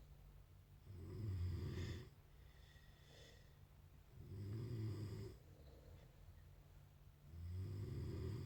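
Snoring in a regular rhythm: three long, deep snores about three seconds apart, with a softer breath between the first two.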